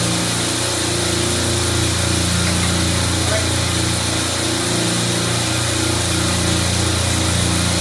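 Steady hum of a supermarket refrigeration rack's running compressors: a low drone with a few fixed tones and a constant hiss over it, unchanging throughout.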